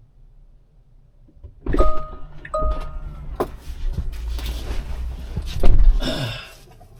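After a quiet start, two short electronic beeps, then a series of clicks, knocks and rustling handling noise, loudest near the end.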